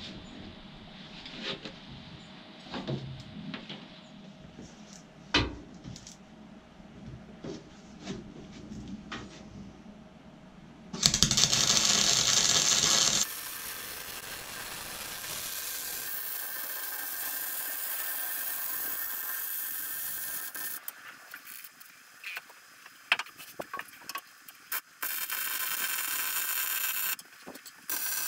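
Metalwork on a steel narrowboat engine bed: scattered knocks and clinks of tools, then, about eleven seconds in, a loud burst of noise lasting a couple of seconds. After it comes a steady sizzling hiss broken by irregular crackles and short pauses, the sound of arc welding.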